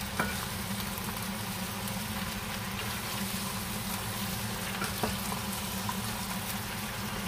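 A wooden spatula stirring a large bowl of cut raw chicken feet with chopped vegetables, with a couple of light knocks against the bowl, over a steady hiss and low hum.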